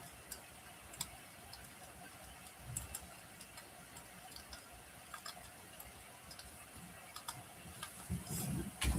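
Wood fire crackling in a fireplace: sparse sharp pops and snaps over a faint hiss, growing louder and busier in the last second.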